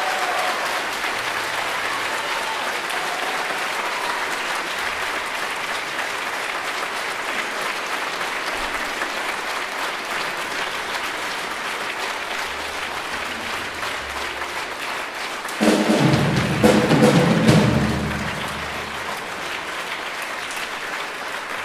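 Audience applauding steadily. About sixteen seconds in, a loud burst of instrumental music lasting about two seconds sounds over the applause.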